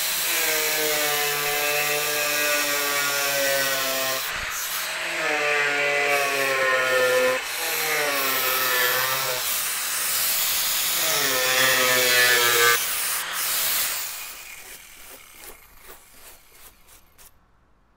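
Angle grinder cutting into the plastic edge of a front bumper, its whine sagging in pitch as it bites and recovering between cuts. About three-quarters of the way through it stops and winds down, leaving a few light ticks.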